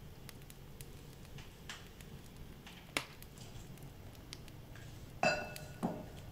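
Quiet handling noises with a few light taps, then near the end a small vessel is set down with a ringing clink, followed by a second, duller knock.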